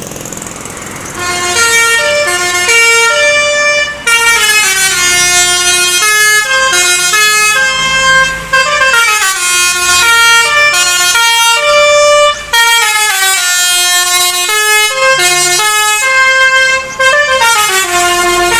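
Tour bus's Basuri-type telolet horn playing a loud, fast-changing melody of horn notes, starting about a second in, with brief breaks every few seconds.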